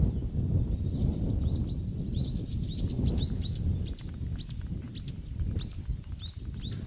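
A small bird singing a quick run of high chirps, each note rising and then falling, starting about a second in, over a steady low rumble.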